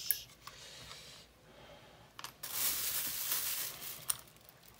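Handling noise from a spinning fishing reel being worked over a cutting mat: a crinkly rustle of a plastic bag lasting about a second in the middle, with a few small sharp clicks of parts and the reel being set down.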